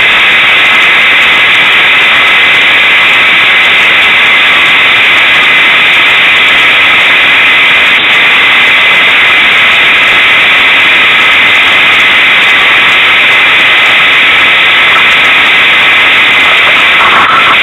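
Unimog 404 S trial truck's engine running while the truck works through an off-road trial section, heard from the cab as a loud, steady, distorted noise that overloads the microphone.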